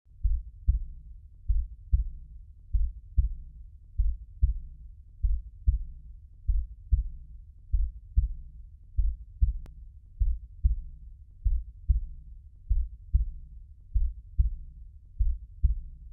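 Heartbeat sound: steady low double thumps, about three beats every two seconds.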